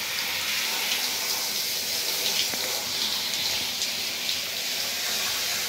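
Handheld shower head spraying water onto a Labrador retriever's head and coat in a bathtub: a steady hiss of running water.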